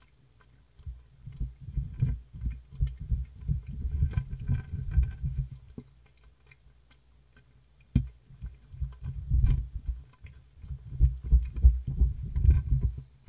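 Cats lapping and chewing canned food off a clear plastic box right above the microphone, heard as rapid, irregular runs of low thuds and soft clicks. There are pauses near the start and for about two seconds midway, and one sharp tap about eight seconds in.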